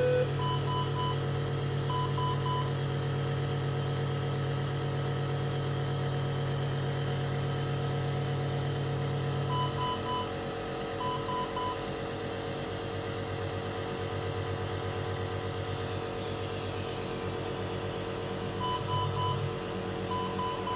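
Nebulizer compressor running with a steady hum that turns uneven about halfway through. Over it, a patient monitor alarm sounds bursts of three short high beeps, two bursts close together, repeating about every nine seconds.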